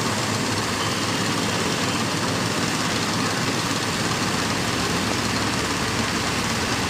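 Heavy diesel engine of a mobile crane running steadily.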